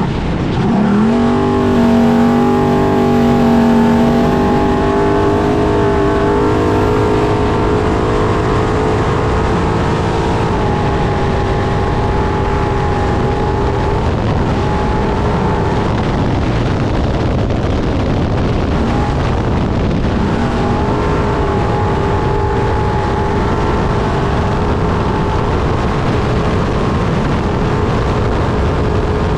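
Trophy truck's engine running hard at race pace, heard from inside the truck over constant rough road and wind noise. The revs climb steeply about a second in, then hold high with several brief dips and recoveries.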